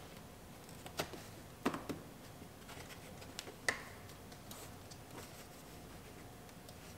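A chrome fog light bezel being pressed into a plastic bumper cover: a handful of sharp plastic clicks as its clips snap into place. The clicks fall in the first four seconds, the loudest near the end of them.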